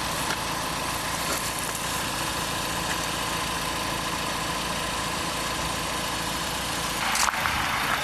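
A vehicle engine idling steadily, with a brief louder burst of noise near the end.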